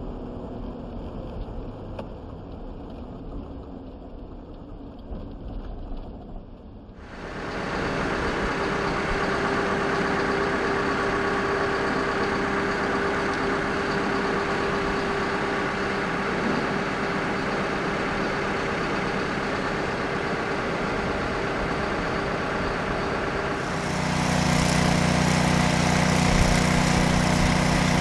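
Engines running steadily. At first a vehicle is heard muffled. About seven seconds in there is a sudden switch to a louder, steady engine sound with a constant whine. About four seconds before the end it turns louder again, with a deep steady hum.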